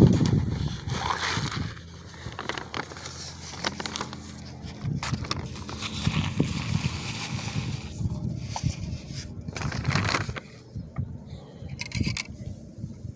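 Irregular crunching, scraping and clicking of birdseed and a bird feeder being handled as the feeder is filled by hand.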